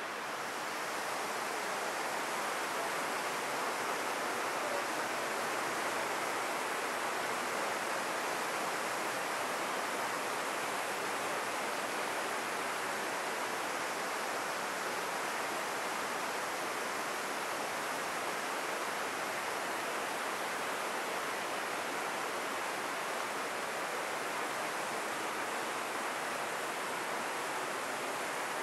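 Buna river water rushing steadily, a constant even hiss.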